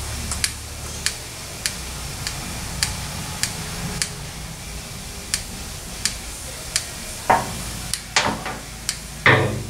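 Light, evenly spaced ticking, about one sharp tick every 0.6 s, over a low shop hum, with a few louder knocks and clatters near the end as a hand grease gun is worked on a car's front suspension fittings.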